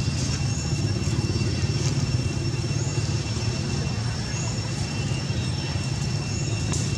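Steady outdoor background: a constant low rumble under a continuous high-pitched whine, with faint short chirps every second or so and a few faint clicks.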